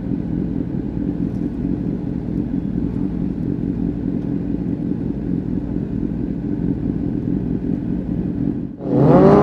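Honda CBR600RR inline-four engine with a Leo Vince exhaust running steadily. Near the end it dips for a moment, then the throttle opens and the exhaust note jumps much louder with a rising, wavering pitch.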